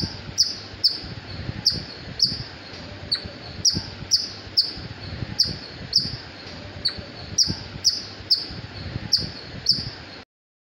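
Indian palm squirrel calling: a run of sharp, high-pitched chirps, about two a second in uneven groups of two or three, over a low background hiss. The sound cuts off suddenly near the end.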